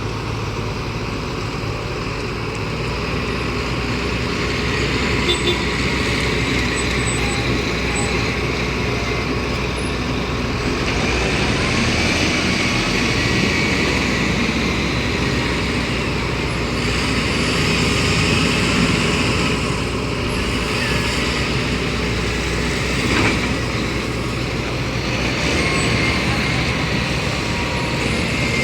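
Heavy diesel machinery running steadily with a continuous low rumble and a broad mechanical din, without stopping or clear breaks.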